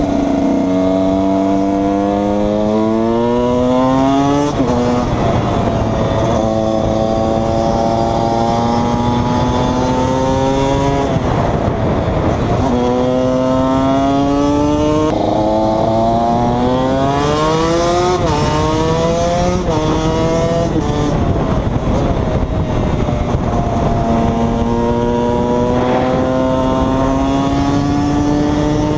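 KTM 125 EXC two-stroke single-cylinder engine pulling up through the gears, its pitch climbing and then dropping sharply at each of several shifts, before holding a nearly steady pitch at cruising speed near the end.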